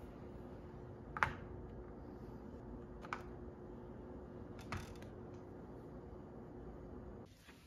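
Three plastic bottles set down one after another into a plastic tray on a counter: three short light knocks about two seconds apart, over a faint steady hum.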